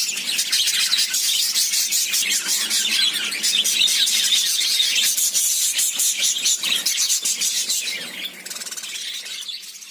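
Birds chirping, many high, quick calls overlapping without a break; the chorus gets quieter near the end and fades out.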